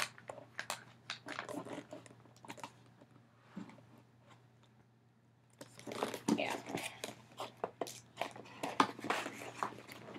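A cardboard mailer box being opened by hand, with irregular crackling and tearing of its tape and flaps. After a pause of a second or two in the middle, it gives way to denser rustling and crinkling of the paper and card inside.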